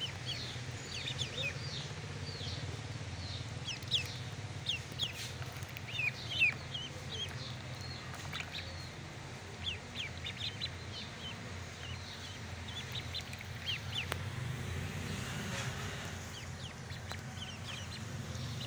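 Ducklings peeping: many short, high, falling peeps in quick runs, over a steady low hum.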